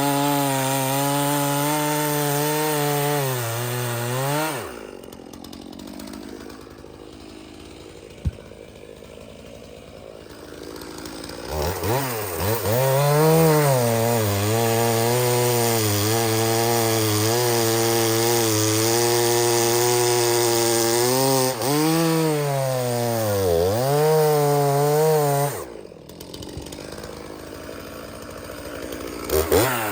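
Stihl two-stroke chainsaw running at full throttle while cutting seasoned oak, its pitch sagging briefly a couple of times under load. It drops back to a quiet idle twice, for several seconds after about four seconds and again near the end, and each time revs back up.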